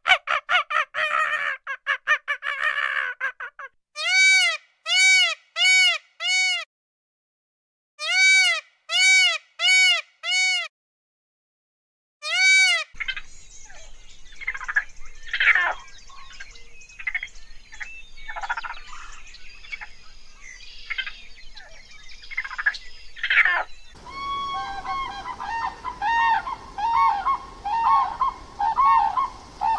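A string of animal calls from several spliced recordings: a dense stuttering call, then two sets of four short, arched honk-like calls with dead silence between, a single call, then irregular calls over background noise and, from about 24 s, rapid repeated calls at one steady pitch.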